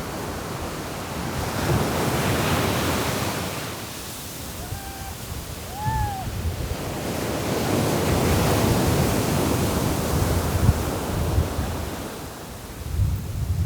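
Waves breaking and washing on the shore in strong wind, with gusts buffeting the microphone; the surf swells and eases in long surges. Two short high calls rise and fall about five and six seconds in.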